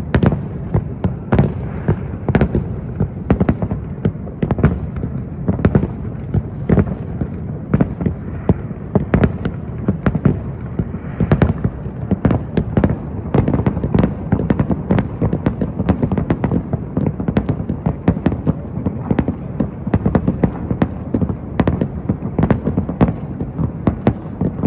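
Aerial fireworks bursting in a continuous barrage: many booms and sharp cracks every second over a steady rumble, with no pause.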